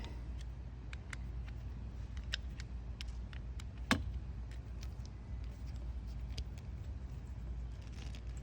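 Scattered faint clicks of a screwdriver working the screw of a hose-mender clamp, with one sharper click about four seconds in, over a steady low background rumble.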